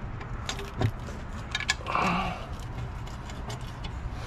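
Light metallic clicks and clinks of transmission oil pan bolts being handled and started by hand into the pan. A few sharp ticks come about a second in and again a second and a half in.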